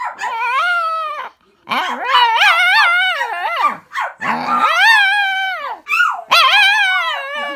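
A puppy howling: about four long, high-pitched howls in a row, each wavering up and down in pitch, with short breaks between them.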